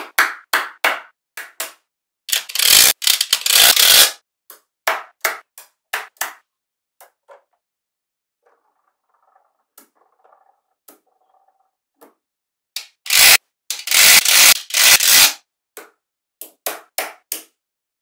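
Small magnetic balls clicking and snapping together as blocks and strands of them are set onto a build. Single sharp clicks, with two longer runs of rapid clattering, one about two seconds in and one about thirteen seconds in, and a faint, soft stretch in between.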